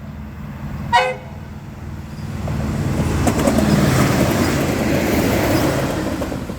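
V/Line Sprinter diesel railcar (the Frankston 'Doodlebug') gives a short horn toot about a second in, then passes at speed: the rumble of its engine and wheels builds to a peak a few seconds later, with a few sharp clicks from the rails, and then eases off.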